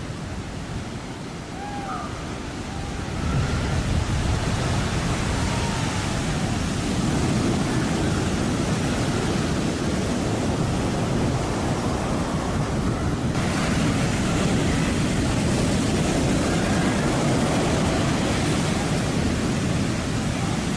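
Ocean surf breaking and rushing up a beach: a dense, steady roar of water noise that grows louder about three seconds in.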